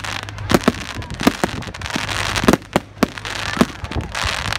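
Fireworks display: an irregular run of sharp bangs from bursting shells, about eight of them, with continuous crackling in between.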